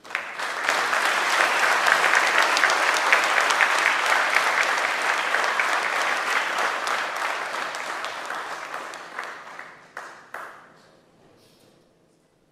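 Audience applauding. It starts suddenly, stays full for several seconds, then thins out and dies away with a few last claps about ten seconds in.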